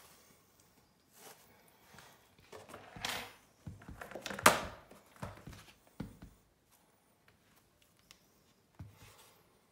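Handling noises in a plastic tub bedded with wood shavings: irregular rustling and scraping of the shavings, with knocks against the plastic. The loudest is one sharp knock about four and a half seconds in.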